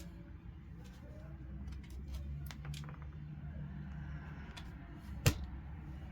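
Scattered light clicks and taps, with one sharp click about five seconds in, over a low steady hum.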